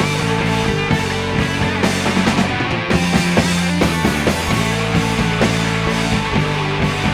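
Rock band playing live, an instrumental passage of electric guitars, bass and drum kit with no singing.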